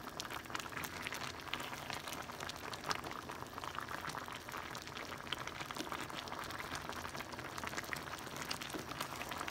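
Pan of chicken cabbage soup boiling on the stove: steady bubbling with many small pops, as a spoon stirs through the vegetables and broth.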